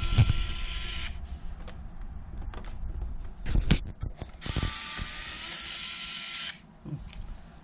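Cordless electric screwdriver running in two bursts with a steady motor whine, the first stopping about a second in and the second lasting about two seconds, as screws are driven during disassembly of a wall-mounted air conditioner. A few knocks of handled parts fall between the bursts.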